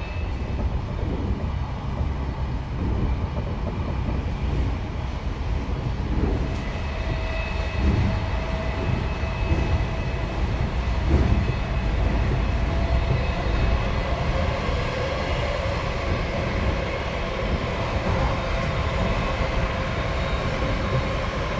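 Tokyo Metro 05 series subway train running between stations, heard from inside the car. The permanent-magnet synchronous traction motors and their inverter give a steady whine over the rumble of wheels on rail.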